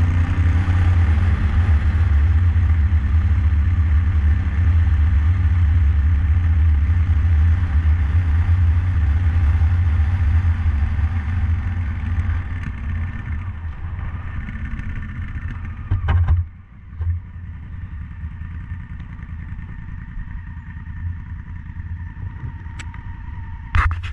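Honda Africa Twin's parallel-twin engine running steadily while the motorcycle rides on a dirt road. About two-thirds through it eases off, there is a sharp knock, and the engine then idles more quietly, with a few sharp clicks near the end.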